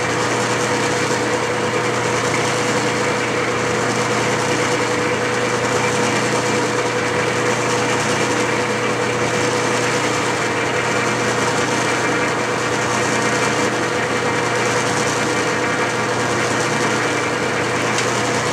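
Clausing metal lathe running steadily under power during Acme thread cutting: an even motor and gear-train hum with a steady whine.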